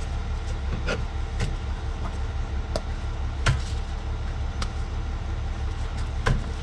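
Scattered light metallic clicks and knocks as the rear brake pads and caliper are handled and seated, about six in all, the loudest a little past halfway. A steady low hum runs underneath.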